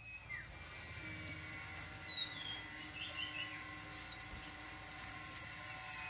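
Caged woodpecker giving a handful of short, high squeaky calls and chirps, some sliding up or down in pitch, over a faint steady hum.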